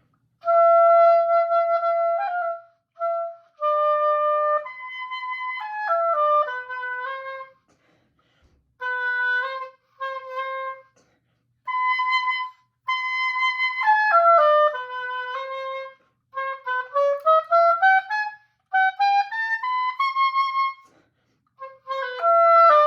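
Solo oboe playing phrases of held notes and quick runs that fall and rise, with short breaks between phrases. The player's embouchure is tired, which she expects to cost her intonation and control.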